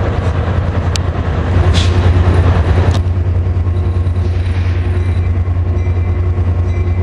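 Train running close by: a loud, steady low rumble with a fast pulsing texture, and two sharp clicks about one and three seconds in.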